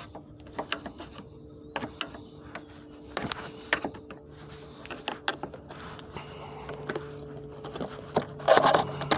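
Wood chisel prying the sealed plastic end tank off a scrap radiator: a run of irregular clicks, knocks and scrapes as the joint is worked loose, with a louder clatter near the end.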